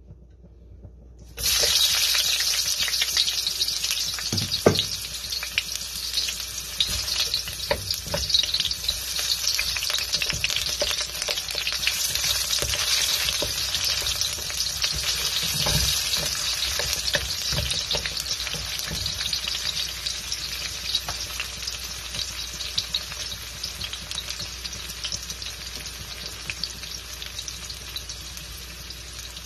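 Sliced red onions frying in hot oil in a carbon steel wok: a loud sizzle that starts suddenly about a second and a half in as the onions go in, then runs on and eases slowly. A wooden spatula stirring and scraping the wok adds scattered clicks.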